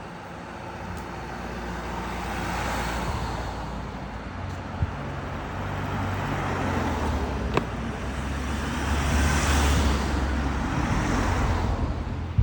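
Motor vehicles driving past on a road: a low engine hum and tyre noise that build up and grow loudest near the end. Two sharp clicks stand out partway through.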